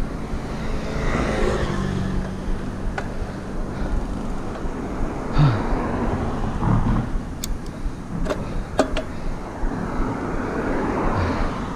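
Wind rushing over a GoPro's microphone on a moving bicycle, with cars passing, one about ten seconds in. A few sharp clicks come around the middle.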